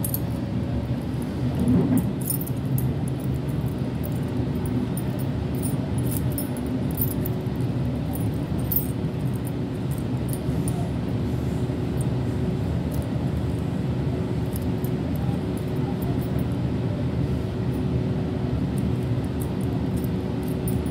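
Steady low rumble of a Sydney Trains Waratah electric train running along the track, heard inside the carriage, with a faint constant hum over it and a brief louder bump about two seconds in.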